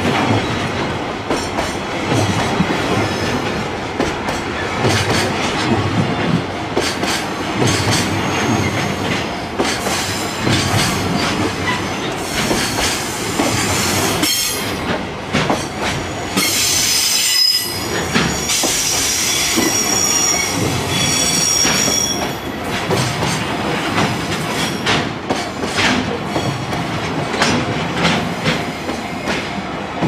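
Freight train of Koki container flatcars rolling past close by, a steady clatter of wheels over the rail joints. Around the middle a high-pitched wheel squeal rises over the rolling noise for several seconds.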